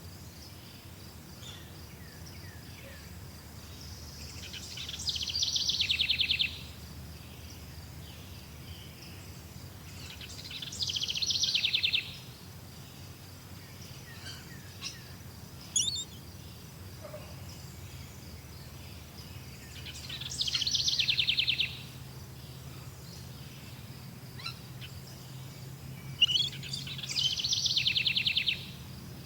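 A songbird repeating a song phrase of about two seconds, four times, each phrase ending in a fast trill. A few short chirps fall between the phrases, over a steady high insect-like whine.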